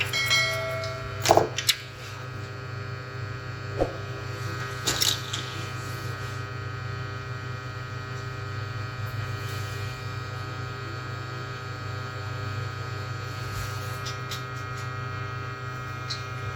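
Steady electrical hum and buzz from running bench equipment, with a few sharp clicks and taps in the first five seconds as tools are handled.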